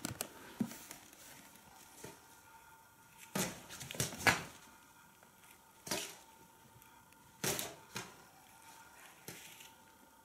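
Fabric rustling and scuffing in a series of short bursts a second or two apart. The loudest come about three and a half to four seconds in and again about seven and a half seconds in.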